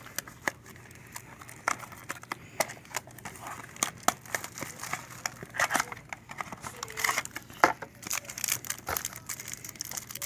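Plastic trading card pack wrapping crinkling and tearing as a pack is opened and the cards are handled, in an irregular run of crackles and clicks.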